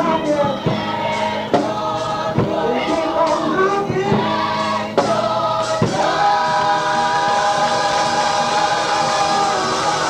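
Gospel singing, several voices blended like a choir, with a few sharp beats in the first half and then a long held note from about six seconds in.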